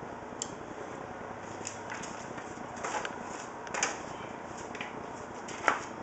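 Small plastic clicks and rustling as front-panel cable connectors are handled and pushed onto the motherboard's header pins, a few scattered clicks with the loudest near the end, over a steady background hiss.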